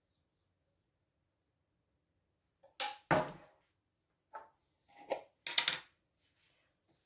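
A few sharp clinks and knocks of dishes and utensils, the loudest about three seconds in.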